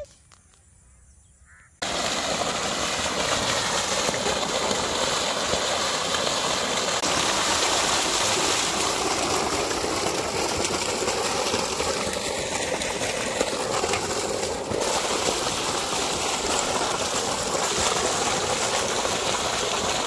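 Strong jet of water gushing from a white PVC pipe outlet and splashing onto wet ground, with a large fish held and rinsed under it. The flow comes in suddenly about two seconds in and then runs steadily.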